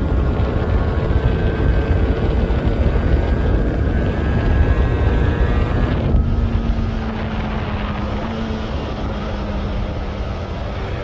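Yamaha RZ350's two-stroke parallel-twin engine running with a deep, steady rumble. About six seconds in the sound softens and its note settles and drifts slowly lower.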